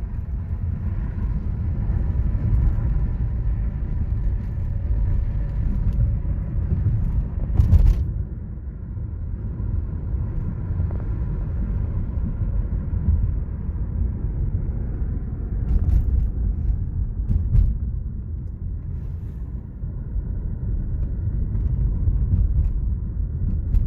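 Steady loud low rumble, with a brief sharp knock about eight seconds in and another around sixteen seconds in.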